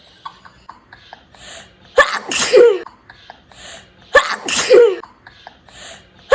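A person sneezing twice, about two seconds apart, each a sudden loud burst ending in a falling 'choo'. A third sneeze begins at the very end. The sneezes are forced by putting something up the nose.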